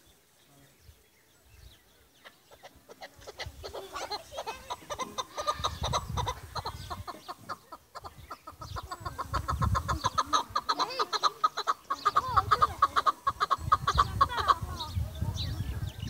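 Chukar partridge calling: a fast run of short, repeated 'chuk' notes that starts about three seconds in, grows louder, and stops shortly before the end.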